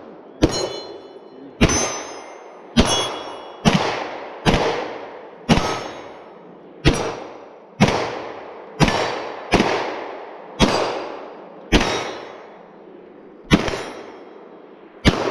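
Gunshots fired at a steady pace, about one a second, around fourteen in all, several followed by a brief high ring as steel targets are hit.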